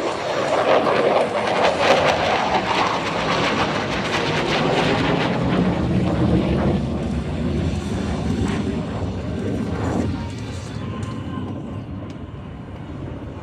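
Jet noise from an F-22 Raptor's twin Pratt & Whitney F119 engines as it flies past, a broad roar that is loud at first and fades away over the last few seconds.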